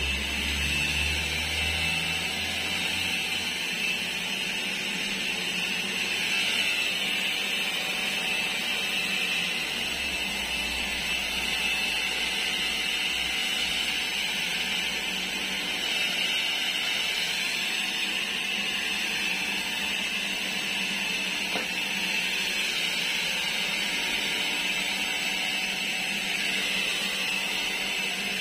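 Keelat KEAB002 battery-powered electric leaf blower running steadily, a high-pitched whine over rushing air as it blows dry leaves.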